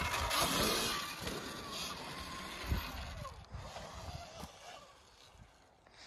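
Sur-Ron electric dirt bike's motor whining, rising and falling in pitch with the throttle, and its tyres on dirt as it climbs the trail, fading as it rides away.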